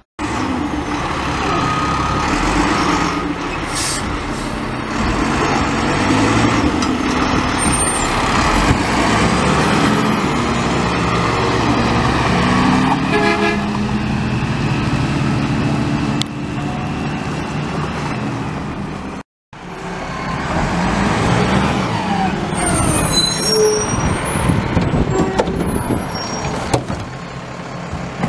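Front-loader garbage truck's diesel engine running and pulling, its pitch rising and falling with the throttle. The sound drops out for a moment about two-thirds through, and a few brief high squeaks follow near the end.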